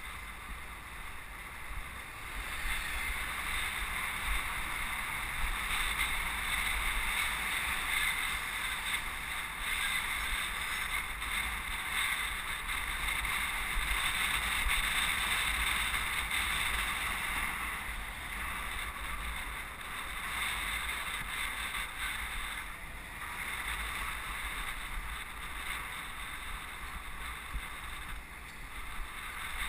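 Steady rush of wind and road rumble on the microphone of a camera riding on a moving bicycle, louder from about two seconds in and easing off a little past the middle.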